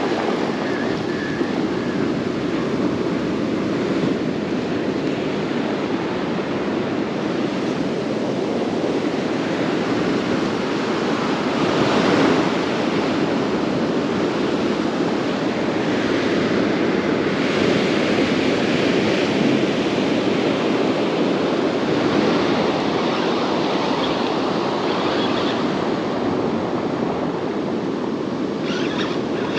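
Ocean surf breaking and washing up the beach, a steady rush of waves that swells about twelve seconds in.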